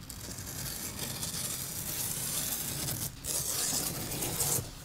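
Leatherman multitool blade slitting packing tape along the seam of a cardboard box: one long cut, a short break about three seconds in, then a second, louder stroke.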